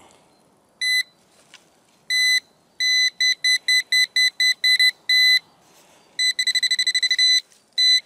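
Handheld GP-Pointer pinpointer probe beeping in loose soil, one high-pitched electronic tone: a single beep, then a string of short beeps about four a second, then a fast trill of beeps near the end as the tip closes on a buried coin.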